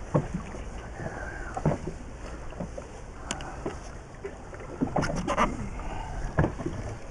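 Wind on the microphone and sea water lapping against a small inflatable boat, with a few sharp knocks and clicks scattered through, the strongest a cluster about five seconds in.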